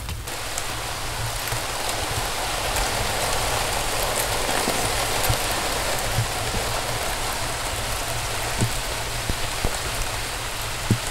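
Steady rushing hiss of a freeze-up river running with drifting ice, with a few light knocks in the second half.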